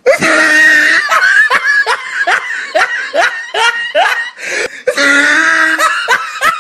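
Loud, hearty laughter in a run of quick repeated bursts, each falling in pitch. It is framed by a loud, steady blaring sound at the very start and again about five seconds in.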